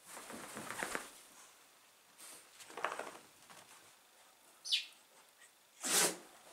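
Duvet rustling as a small dog shifts and lies down in the bedding, with a brief high squeak a little before the end and a short sharp noise near the end.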